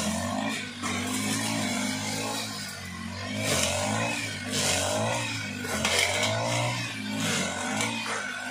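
Petrol brush cutters running and revving up and down as they cut through tall grass, with several engine pitches overlapping. Brief hissing surges come every second or so as the cutting heads bite into the growth.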